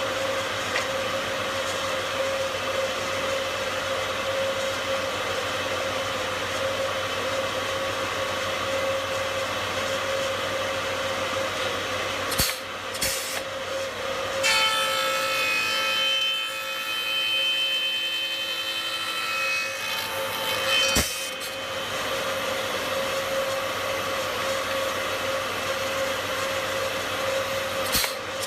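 Spindle moulder (shaper) running with a steady hum. For about six seconds past the middle the sound changes, with higher tones over it. Several sharp clacks come before and after that stretch and again near the end.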